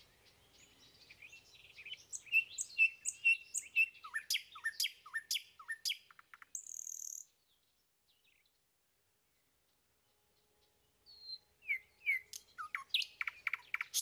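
Small songbirds chirping, with quick repeated high notes and short falling whistles, in two bouts a few seconds apart.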